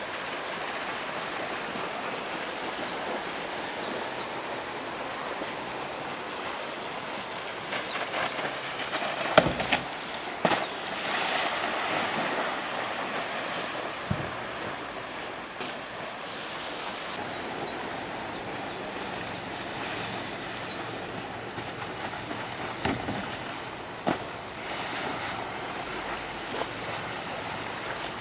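Steady hiss of wind and water, with a few sharp knocks, the loudest about nine seconds in, and a louder spell of rushing noise just after it.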